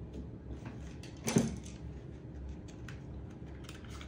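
A single sharp knock a little over a second in, with a few faint small clicks and a low steady room hum.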